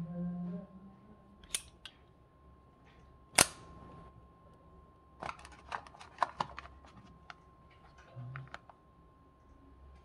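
Metal clicks from handling Zippo oil lighters with heavy serpent emblems: one loud, sharp click about three and a half seconds in, then a quick run of smaller clicks and a few more near the end.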